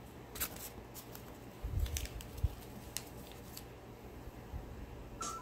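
Paper being handled and set down on a wooden tabletop: a few scattered light clicks and rustles, with a couple of soft low thumps about two seconds in.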